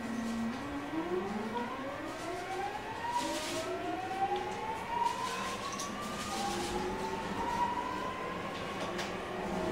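Mitsubishi GTO VVVF inverter and traction motors of a 209 series electric train whining as the train accelerates away from a stop. Several tones climb in pitch in stages, each levelling off as a new one starts rising.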